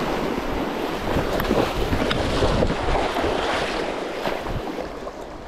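Shallow rocky creek rushing over stones in a riffle, close to the microphone, with a low rumble of wind and handling on the microphone.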